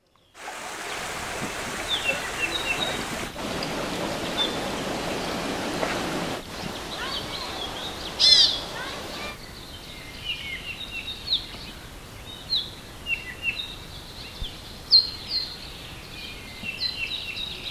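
Rainforest ambience: many birds chirping and calling in short repeated notes, with one loud ringing call about eight seconds in. A steady rush of flowing water sits under the birds for the first several seconds, then drops away.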